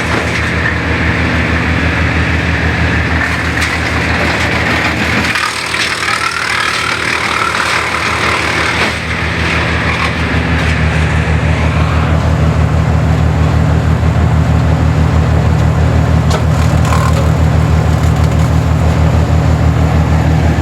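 Brush Bandit 200+ XP wood chipper running at high throttle, its engine pulsing steadily under a crackling, grinding noise of wood being chipped. About five seconds in the engine note dips briefly. From about halfway through the chipping noise fades, and the engine runs on alone, louder and steadier.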